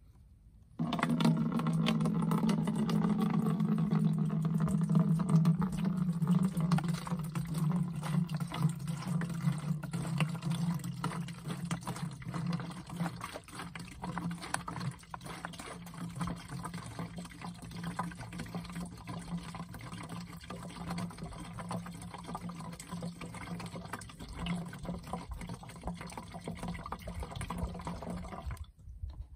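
Vinegar poured from plastic bottles into a large empty plastic drum. It starts about a second in, is loudest for the first dozen seconds, then carries on quieter and steady until it stops just before the end.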